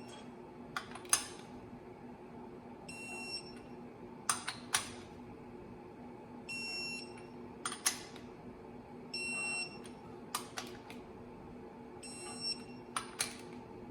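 Electronic torque wrench beeping four times, about three seconds apart, as each clutch bolt reaches its 80–82 ft-lb setting. Each beep comes after a couple of sharp clicks from the wrench working the bolt, over a steady low hum.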